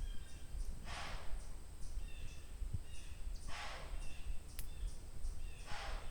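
Heavy breathing, one breathy puff about every two and a half seconds, with faint bird chirps between the breaths.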